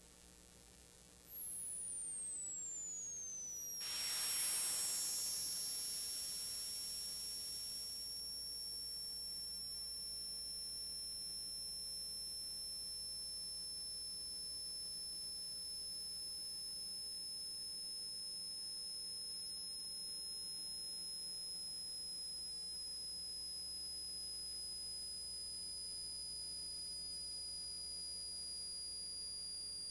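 Two high-pitched electronic whistle tones that glide steeply down in the first few seconds, then hold nearly steady while slowly sinking in pitch. A burst of hiss about four seconds in fades out over the next few seconds.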